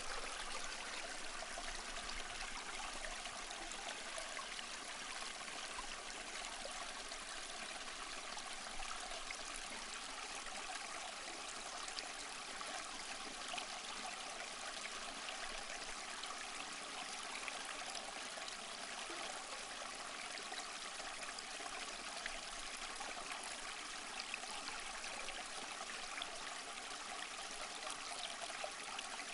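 A small stream flowing, a steady, even rush of water that does not change.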